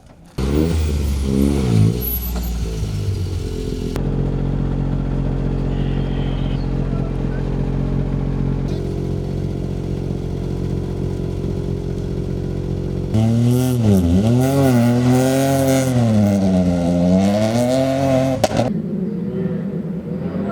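Ford Fiesta R2T's turbocharged 1.0-litre three-cylinder engine revving hard. The revs swing up and down at first, hold at one steady pitch for several seconds, then rise and fall repeatedly before easing off near the end.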